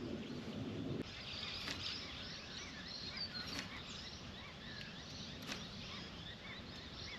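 Birds chirping in the background, many short twittering calls, with a low hiss that stops about a second in and a few faint ticks.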